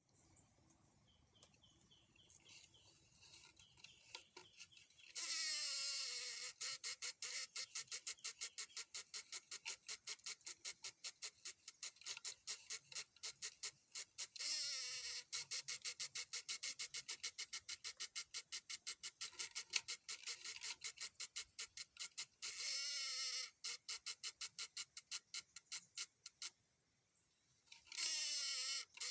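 Fast, even clicking at several clicks a second, taken for a strange sound coming from a wooden board, with warbling chirps breaking in four times and a brief pause near the end.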